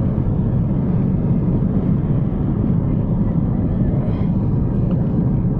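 Steady low rumble of a car's road and engine noise, heard inside the cabin while driving.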